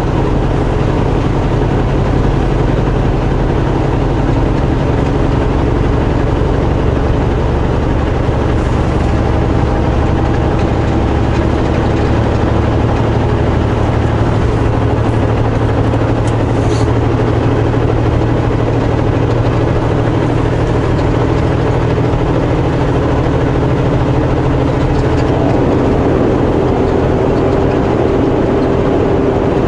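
Semi truck's diesel engine running steadily under way on the highway, heard from the cab as a constant low drone with road noise.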